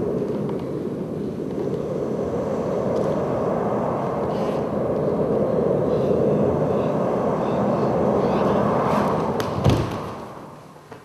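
A loud, steady rushing noise, like wind or a storm, breaks off with a heavy thump near the end and then dies away quickly.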